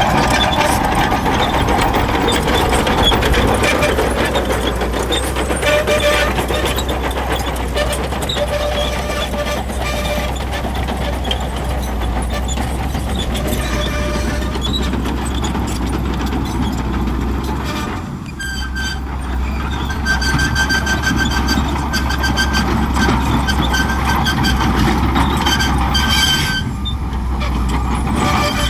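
Shantui crawler bulldozer running steadily under load, its diesel engine drone mixed with higher squeals and clatter from the tracks and machinery. The sound dips briefly twice, about two-thirds of the way in and near the end.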